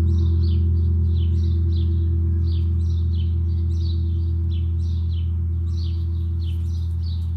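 Tam-tam gong ringing on after a stroke: a deep sustained hum with a slow, regular wavering pulse, gradually fading.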